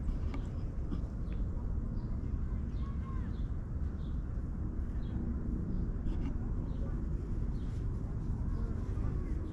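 A domestic cat purring close to the microphone as it is stroked, a steady low rumble, with small birds chirping faintly in the background.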